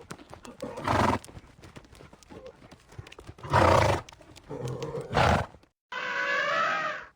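A horse blowing hard through its nostrils three times amid a patter of hoof clicks. After a short break, about six seconds in, comes a wavering, pitched horse call lasting about a second.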